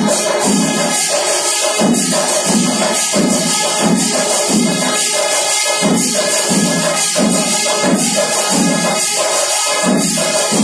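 Kerala temple percussion ensemble: drums beating a steady rhythm about twice a second under a continuous wash of ilathalam hand cymbals.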